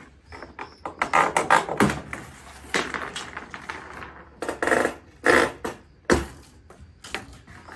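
Green plastic packing straps being cut and pulled off a large packing box: scraping and rustling plastic with sharp snaps, the sharpest about six seconds in.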